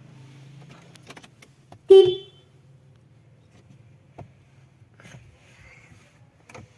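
A vehicle engine running with a low, steady hum that fades out after a few seconds, and one short, loud horn toot about two seconds in. A few light clicks follow.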